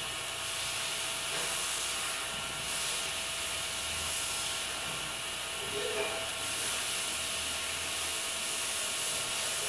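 Steady background hiss of the recording with faint steady tones under it, and a faint short sound about six seconds in.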